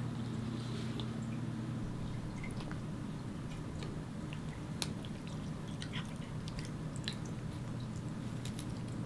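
An old cat tearing at and chewing blades of cat grass: scattered small clicks and crunches over a steady low hum.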